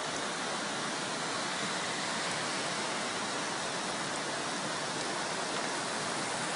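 Flash floodwater rushing, a steady, unbroken rushing noise.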